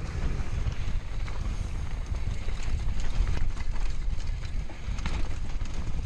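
Wind buffeting the microphone and tyres rolling over a dirt trail during a downhill mountain-bike descent, with scattered clicks and knocks of the bike rattling over bumps.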